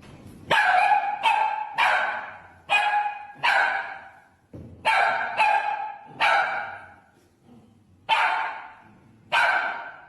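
A dog barking repeatedly, about ten loud barks, mostly in quick runs of two or three with short pauses between.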